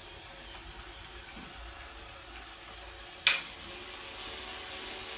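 Lego Expert Builder tracked robot running, its motor and gear train giving a steady whir as the rack-piece program card is drawn through. One sharp click comes a little past three seconds in.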